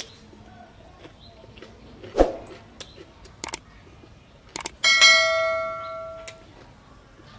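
Subscribe-button sound effect: a couple of clicks, then a single bell ding about five seconds in that rings and fades over about a second and a half. A sharp knock comes about two seconds in.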